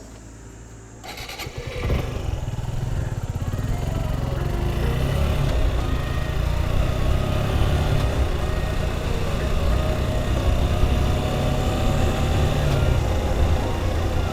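Suzuki Gixxer SF 150's single-cylinder engine picking up about a second in, then running steadily under way with road and wind noise.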